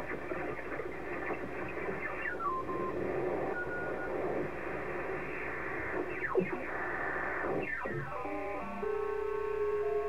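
Lower-sideband audio from a software-defined radio tuning down across the crowded 40-metre amateur band: a hiss of garbled, mistuned sideband voices, with whistles gliding down in pitch as signals pass through. Near the end, several steady tones jump from pitch to pitch, typical of digital-mode signals near 7.07 MHz.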